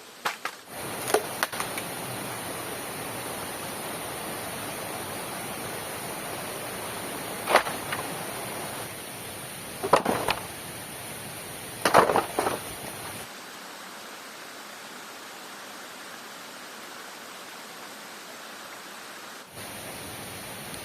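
Steady rain hiss in the forest, with a handful of sharp knocks or cracks: a few about a second in, then single ones spread through the first half, the loudest a cluster a little past the middle.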